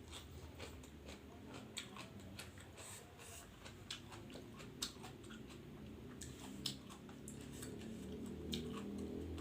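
A person chewing and biting food close to the microphone, with irregular sharp wet mouth clicks, several a second.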